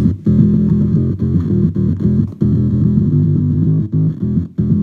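Electric bass played through a gated bass fuzz pedal with the drive fully up and the gate on its hard setting, without a drum loop. The result is a synth-like fuzz riff whose notes are chopped off abruptly by the gate between phrases.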